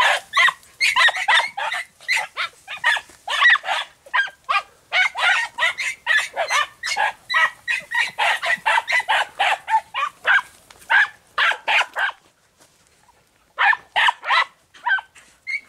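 Podenco andaluz hunting dogs yelping rapidly and without let-up in the brush, giving tongue while hunting a rabbit. The yelping breaks off for about a second and a half near the end, then starts again.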